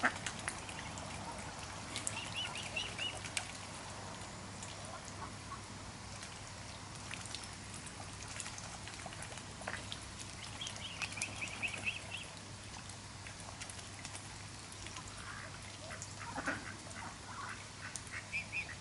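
Mute swans and mallards feeding on the water: bills dabbling at the surface with many small clicks and splashes, short runs of high chirping calls a few times, and a cluster of duck calls near the end.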